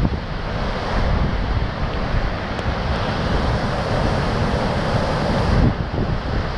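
Strong gusting wind buffeting the camera microphone, a dense, unbroken rush with a heavy fluttering rumble underneath.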